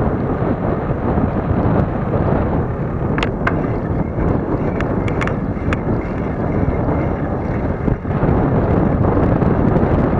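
Steady wind rumble buffeting the microphone of a moving camera. A few short, sharp, high-pitched clicks or chirps come between about three and six seconds in.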